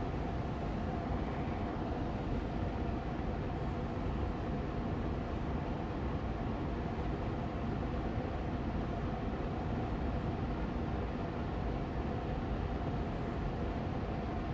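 Austin Air Allergy Machine air purifier fan running steadily on medium speed: an even rush of air, heaviest in the low end, with a faint constant tone above it.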